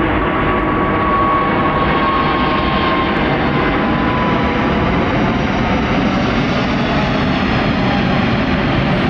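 Airbus A350-900 jet airliner at takeoff thrust, its Rolls-Royce Trent XWB engines giving a loud, steady rumble as it climbs out. A thin tone rides on top and slides slowly down in pitch during the first few seconds.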